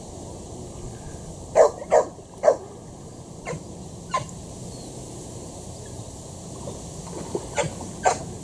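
Short, sharp bark-like animal calls over steady outdoor background noise. Three loud calls come in quick succession about a second and a half in, two fainter ones follow a little later, and two more come near the end.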